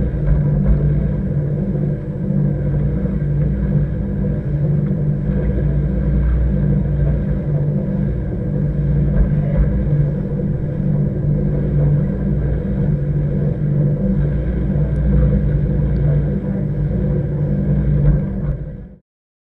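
Underwater treadmill for dog hydrotherapy running, heard through a submerged camera: a steady, muffled low rumble with a constant motor hum, cutting off suddenly near the end.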